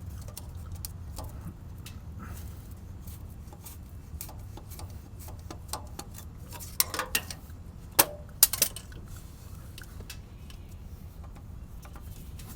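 Metal hand tools clinking and clicking against a hard-to-reach oil filter as it is worked loose, with a few sharper clinks past the middle over a low steady hum.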